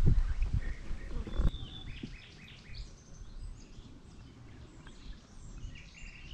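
Low rumbling and thumping noise fades over the first second and a half and ends in a sharp thump. After that, small birds chirp and sing in short, scattered calls over a quiet outdoor background.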